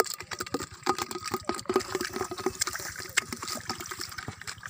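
Muddy water splashing in a plastic bucket as a small fish is dropped in, with a sharp knock at the start, then rapid, irregular splashes as it flaps in the shallow water.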